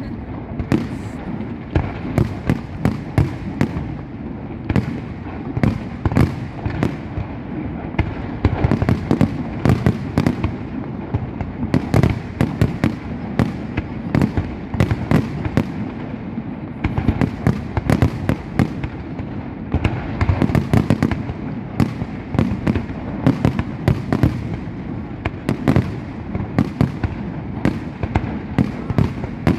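Fireworks display going off: a dense, continuous barrage of sharp bangs and booms, several a second, over a steady rumble.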